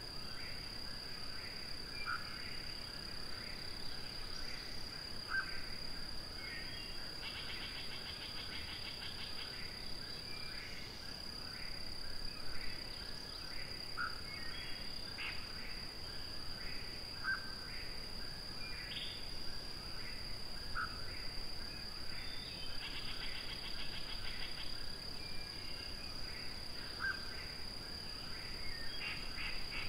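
Eastern whip-poor-will singing, its short phrases repeated every few seconds. A pulsed trill comes in a few times, over a steady high tone.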